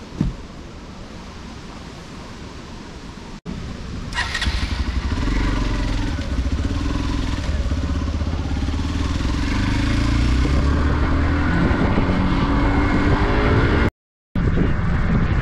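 Motorcycle engine running as the bike is ridden, with wind noise on the microphone; it starts after a few seconds of quieter outdoor background, and the engine note rises near the end as the bike accelerates.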